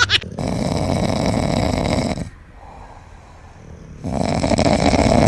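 A sleeping dog snoring: two long snores, each nearly two seconds, with a quiet pause of about two seconds between them.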